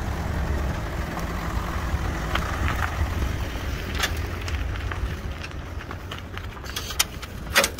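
Renault Clio hatchback's engine running at low speed close by, a steady low rumble, with a few sharp clicks, the loudest near the end.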